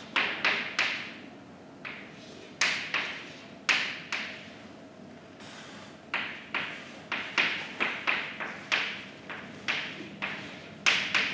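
Chalk tapping and knocking against a blackboard as an equation is written: irregular sharp taps, often several in quick succession, with short pauses between strokes.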